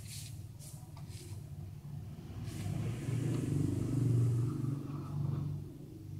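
Low, steady rumble of a running engine that swells about three to four seconds in, with a few light metal clicks in the first second or so from an L-shaped wrench being fitted to bolts on the engine's round cover plate.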